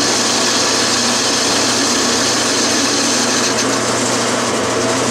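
12-inch Colchester lathe running steadily with its three-jaw chuck spinning, as the tool takes a facing cut across the end of a casting.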